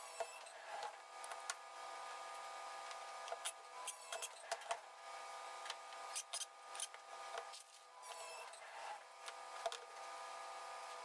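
Faint, scattered clicks and rattles of tools and parts being handled, over a steady hum.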